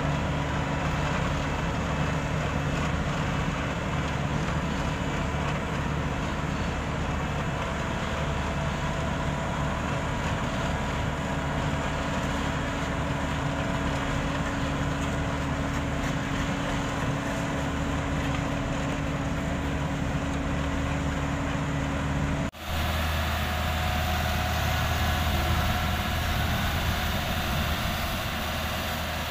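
Diesel engine of an asphalt paver running steadily at close range, with a steady hum. About three quarters of the way through, the sound cuts abruptly to a tandem road roller's engine running, deeper in pitch.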